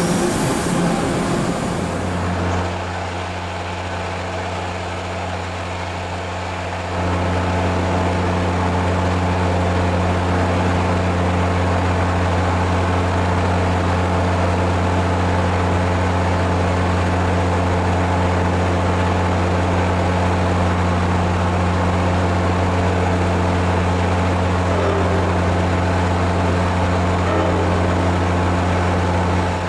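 Amtrak Downeaster's diesel locomotive running with a steady, deep, even hum, which steps up louder about seven seconds in as the train moves slowly by.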